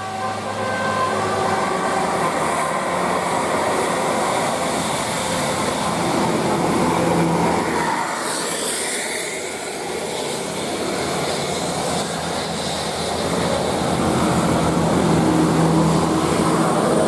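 Large buses passing close by: engines and tyre noise rising and falling, with a brief hiss about eight seconds in and a bus engine growing louder near the end.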